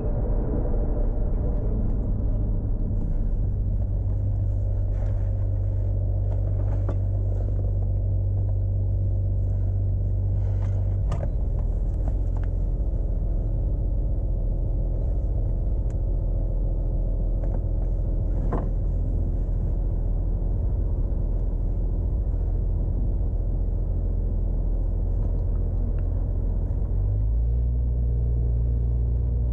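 Turbocharged 2JZ inline-six of a MK4 Toyota Supra running steadily at low revs, a deep, even drone. A couple of brief clicks come through, and the drone grows stronger near the end.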